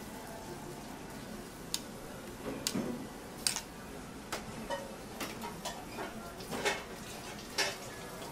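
Steel teppanyaki spatulas and a steel dome cover clicking and scraping on a flat steel griddle: a string of irregular sharp metal clicks, some in quick pairs, over a low steady hiss.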